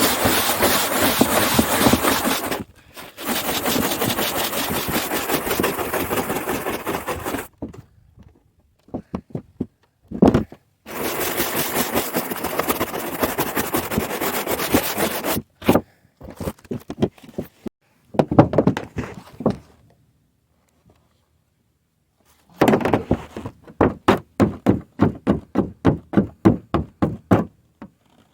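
Rhythmic hand strokes scraping across a flat metal roof, in several runs broken by short gaps, the later runs as separate strokes about two or three a second.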